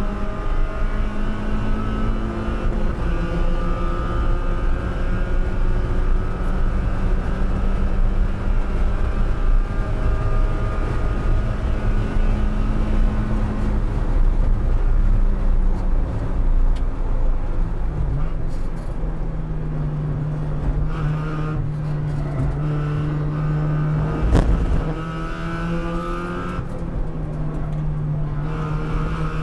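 In-cockpit sound of a Spec Miata's 1.8-litre four-cylinder engine at racing pace: accelerating hard through the first half, then lifting off for braking and settling to a lower, steadier note. A single sharp thump comes late on.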